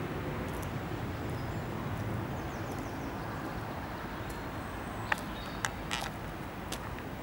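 Outdoor background noise: a steady low rumble, with a few faint high chirps like small birds, and four sharp clicks or taps a little past halfway.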